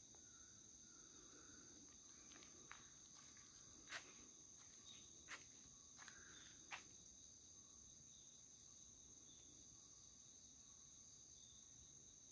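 Faint, steady high-pitched chorus of insects singing, with a few soft clicks over the first seven seconds.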